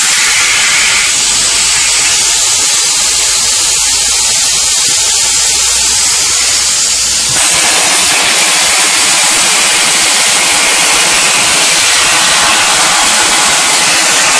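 Air plasma cutter's arc cutting sheet steel on a CNC table: a loud, steady hiss, its tone fuller in the lower range from about seven seconds in.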